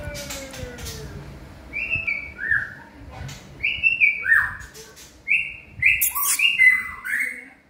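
Caged songbird singing a run of loud whistled notes, each a short downward slur, starting about two seconds in and coming closer together near the end.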